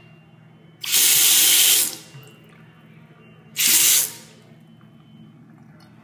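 Two-handle bathroom sink faucet running in two short spells, a loud hiss of water into the basin lasting about a second, then a shorter one about three and a half seconds in.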